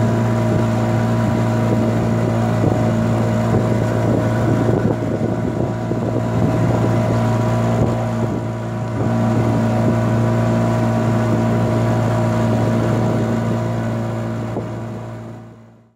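Engine of a small wooden river boat running steadily under way, with a constant low hum and a rush of wind and water. The sound fades out near the end.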